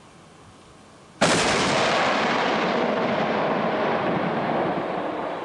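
AMOS 120 mm twin-barrel mortar turret firing: a sudden loud blast about a second in, followed by a long rumbling noise that slowly fades over about four seconds.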